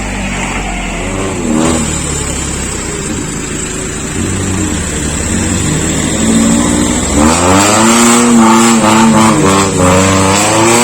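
Off-road 4x4 jeep engine running, then revving hard from about seven seconds in, its pitch rising and falling repeatedly as it is pushed up a muddy track.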